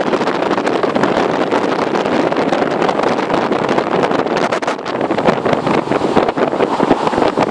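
Wind buffeting an outdoor camera microphone: a loud, steady rushing that turns gustier and crackly in the second half.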